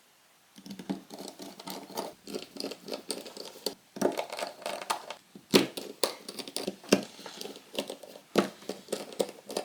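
Small irregular clicks, taps and scratches from hands handling a smartphone's frame, parts and tools during reassembly. They start about half a second in, with a few sharper clicks among them.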